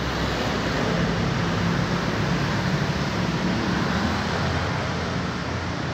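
Street traffic passing close by: a truck's engine running with a low, steady hum and motorbikes going past, over a steady wash of road noise.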